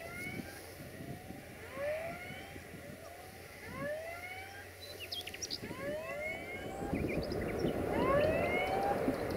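Rails singing ahead of an approaching diesel locomotive, a string of overlapping rising whines that grows louder over the last few seconds. Birds chirp briefly now and then.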